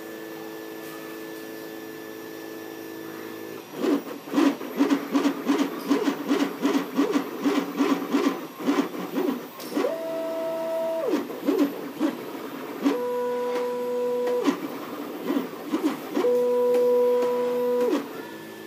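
MakerBot Replicator Mini 3D printer at work. A steady fan-like hum runs at first. From about four seconds in, the stepper motors buzz in quick, short pitched bursts, several a second. Three held motor tones of one to two seconds each break up the bursts, each gliding up at its start and down at its end.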